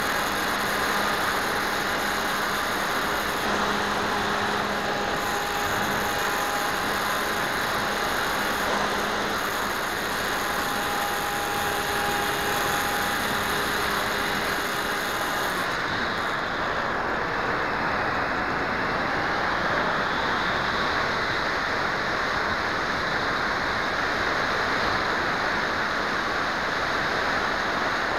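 A keychain camera's microphone picking up a steady rushing noise while carried aloft, with faint steady tones in it that stop about halfway through, after which the hiss is duller.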